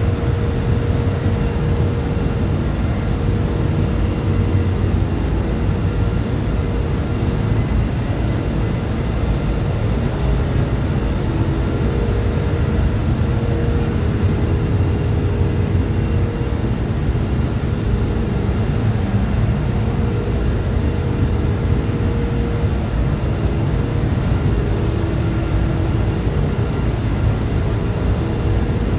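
Engine-room machinery, most likely a ship's diesel generators, running: a steady, loud low drone with faint steady whines above it.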